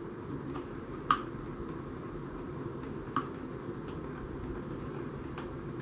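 Screwdriver driving an M4 screw into a pistol grip: a few light, sharp clicks of the tool on the screw, the loudest about a second in and another about three seconds in, over a steady low background hum.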